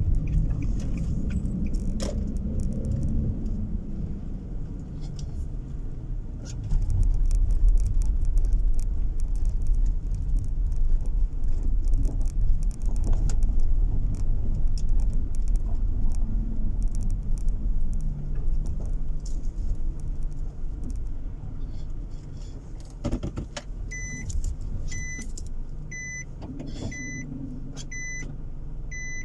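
Car cabin noise while driving: a steady low engine and road rumble that gets louder about seven seconds in, then eases off again. From about 24 seconds in, a regular electronic beep from the car repeats steadily.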